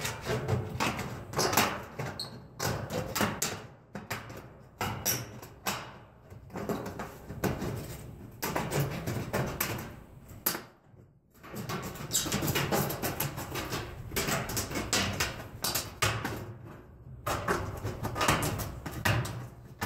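Old hand tin snips cutting through a corrugated metal roofing panel: stroke after stroke of crunching, scraping metal as the blades bite and the sheet flexes, with a short pause about halfway through.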